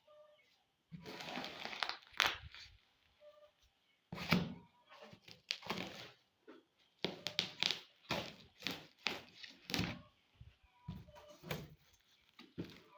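Packaging being unwrapped by hand: irregular crinkling, tearing and rustling of wrapping, with occasional thunks as the box and parts are handled.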